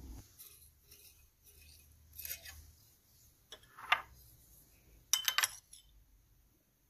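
Metal spoon clinking against a glass bowl as a ball is scooped out of the thick sauce: a couple of single clinks, then a quick run of several clinks about five seconds in.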